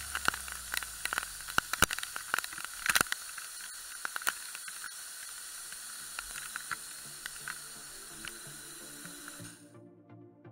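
Rushing white water of a waterfall close to the microphone, with many sharp clicks and knocks. Background music comes in about six seconds in, and the water sound cuts off abruptly near the end, leaving only the music.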